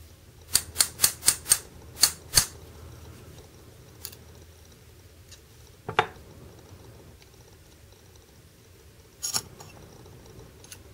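Sharp metallic clicks and taps from the small metal parts of a disassembled DPx HEST/F folding knife being worked and handled: seven quick taps in the first two and a half seconds, then a few single clicks and a knock.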